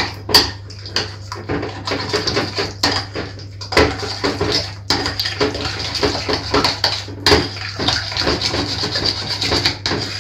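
A utensil stirring a thick quark-and-egg batter in a china bowl, clicking and scraping against the bowl's sides in quick, uneven strokes.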